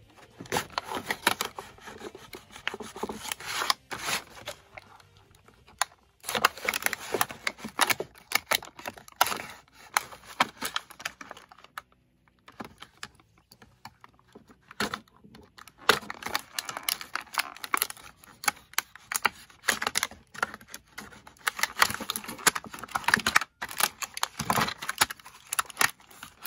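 Hands opening the plastic blister packaging of a Tech Deck fingerboard ramp set and handling its plastic parts: a dense run of clicking and rustling, in several spells with short pauses.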